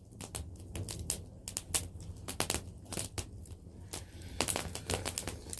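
Wood fire crackling, with frequent irregular sharp pops and snaps.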